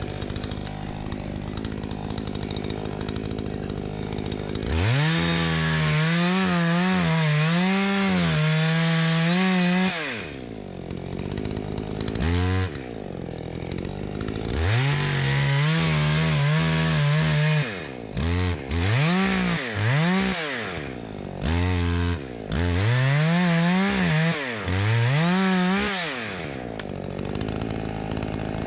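Two-stroke chainsaw idling, then revved up and cutting into wood in three long runs of several seconds each. The pitch wavers under load, with short throttle blips between runs and a drop back to idle near the end.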